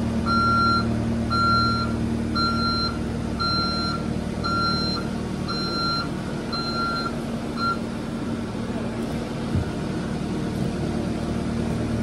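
New Holland skid steer running steadily while its reversing alarm beeps about once a second as it backs up. The beeping stops a little past halfway through, and the engine keeps running.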